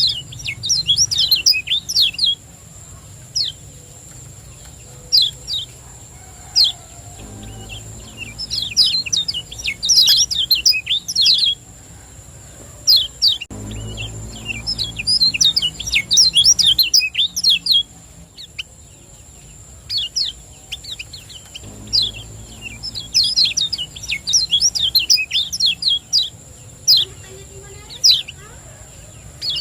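Kecial kuning white-eye singing its 'ciak ciak jos' song. Rapid runs of high, sharp chirps come in bursts of two to four seconds about every six to eight seconds, with single chirps between them. A faint steady high whine runs underneath.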